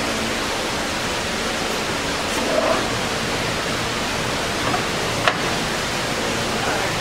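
Steady hum and hiss of a LeBlond ND engine lathe's drive running, with a sharp click about five seconds in as a headstock gear lever is shifted.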